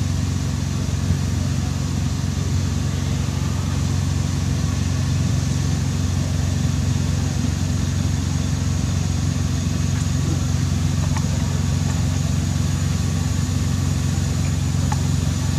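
A steady low drone, like an engine idling, holding an even pitch and level with no change.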